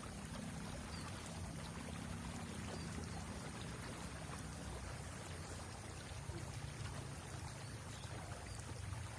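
Steady flow of river water.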